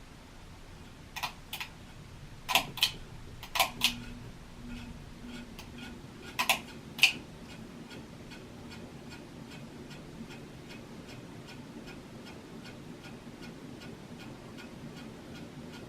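Hunter Low Profile ceiling fan running with two blades: a low motor hum with a faint, even clicking from the motor bearings, about three clicks a second. Over the first seven seconds a handful of much louder sharp clicks come in pairs.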